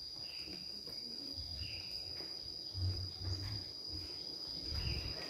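A steady high-pitched insect trill, like a cricket's, with irregular low thuds of footsteps.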